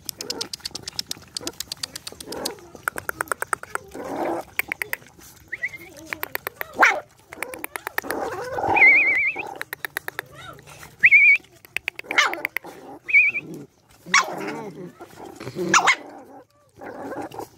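Several puppies eating rice from a metal bowl: fast runs of wet smacking and chewing clicks. Four short, high, wavering whines cut in, along with a few short barks.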